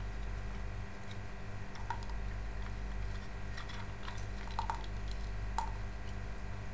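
A few light clicks and small knocks of hard plastic fountain-pump parts being handled and fitted together, over a steady low hum.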